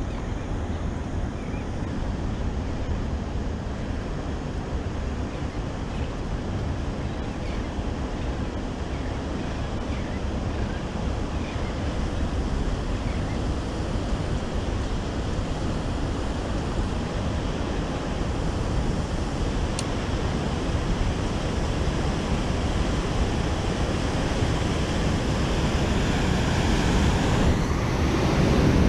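Waves from a passing ship's wake washing and splashing against the granite riprap, with wind rumbling on the microphone; the surf grows louder near the end.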